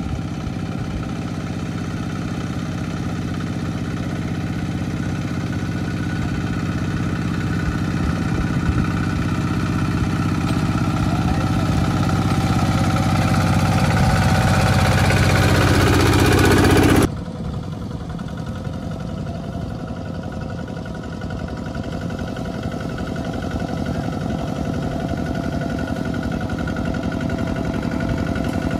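The single-cylinder diesel engine of a two-wheel walking tractor pulling a trailer, running steadily and growing louder as it approaches. A little over halfway through, the sound cuts off suddenly to another walking tractor's engine, quieter at first and slowly growing louder.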